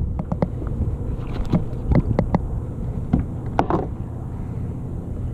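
Scattered knocks and clicks of gear being handled on a fishing kayak, over a steady low hum.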